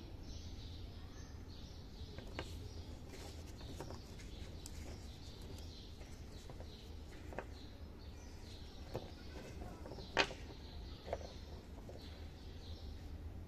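Dry, crumbly clay-and-chalk pieces handled by fingers: scattered light clicks and taps as pieces knock together, one louder click about three-quarters of the way through, over a low steady hum.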